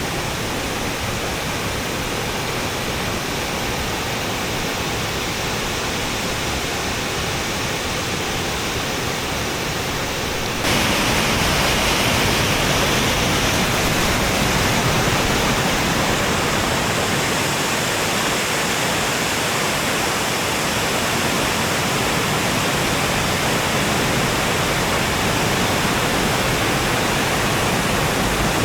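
Mae Sa Waterfall's water rushing steadily. About ten seconds in it jumps suddenly louder and brighter, then holds steady.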